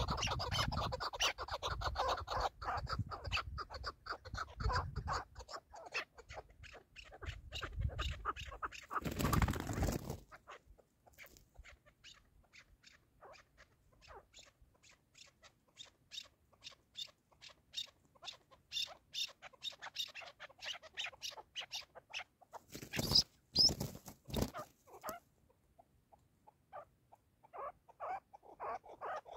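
Chukar partridge calling: a long run of quick, short repeated clucking notes, dense and louder for the first several seconds, then sparser and fainter, and picking up again near the end. Two brief bursts of noise break in, about ten seconds in and again past the two-thirds mark.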